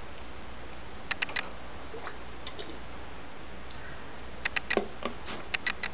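Light clicks and taps of small tablets and plastic bottles being handled on a desk. There are three quick clicks just after a second in, then a run of clicks in the last second and a half.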